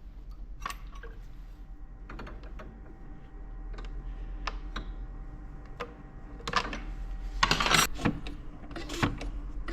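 Clicks, taps and knocks of a hand-operated fuel injector tester and fittings being worked, with a brief louder rushing noise about three quarters of the way through.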